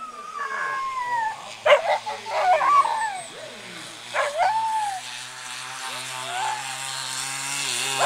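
Racing greyhounds whining and yelping with excitement before the start: high whines that glide down in pitch, broken by sharp yelps a little under two seconds in, around two and a half seconds, and again just past four seconds. A steady low hum joins about six seconds in.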